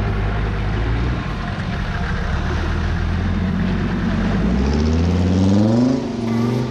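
Off-road 4x4 vehicle's engine running steadily at low revs, then revving up with a rising pitch, which drops briefly about six seconds in and climbs again.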